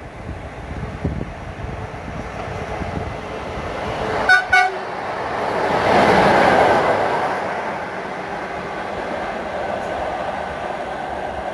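HŽ Cargo electric locomotive giving two short horn blasts about four seconds in, then rushing past close by at speed. The running noise swells to its loudest a couple of seconds after the horn and eases off as the train draws away.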